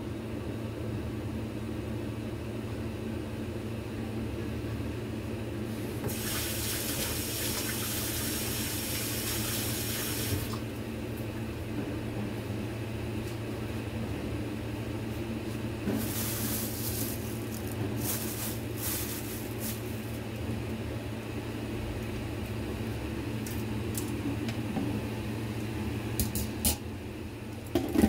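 Kitchen tap running for about four seconds, then short intermittent splashes of water a few seconds later, over a steady low hum. A couple of sharp knocks near the end.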